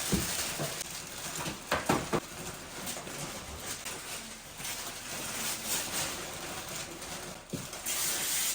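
Wrapping paper rustling and crinkling as presents are unwrapped, a dense run of small crackles with a few louder rips near the start.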